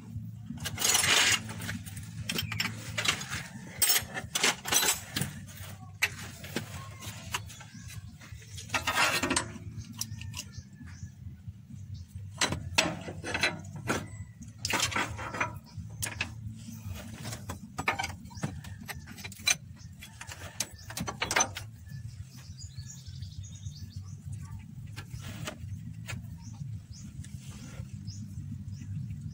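Metal hand tools clinking and clattering in irregular clanks, with a few longer scraping rattles, over a steady low hum.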